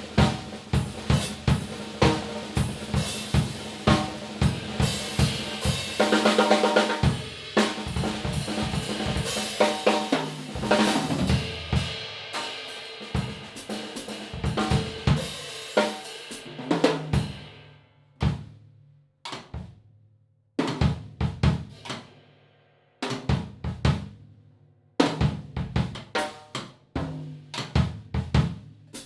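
Yamaha Oak Custom oak-shell drum kit played and heard through room microphones: a steady groove of kick, snare and hi-hat, a dense fill about six seconds in, and cymbal-heavy playing that dies away after about seventeen seconds into sparse single drum strokes with short pauses between them.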